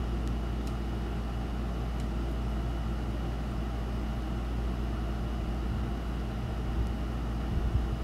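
A steady low mechanical hum with a few faint ticks and a couple of soft knocks near the end.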